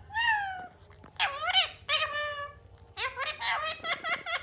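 Indian ringneck parrot chattering in three bursts of high, wavering calls: one at the start, one about a second in, and one near the end.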